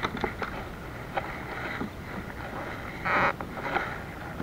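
Wind on the microphone and water moving against a plastic kayak's hull, with scattered light clicks and knocks of fishing line and gear being handled, and one short, loud burst of noise about three seconds in.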